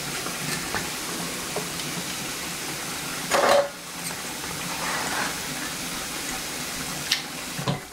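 Steady hiss of food cooking on the stove, with one loud knock about three and a half seconds in as potato slices are handled on a plastic cutting board, and a couple of small clicks near the end.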